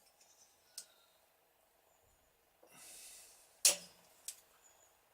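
A few sharp metallic clicks and knocks with a short rustle, from the cylinder barrels of a Yamaha XS650 engine being handled and worked down over the pistons. The loudest knock falls just past the middle.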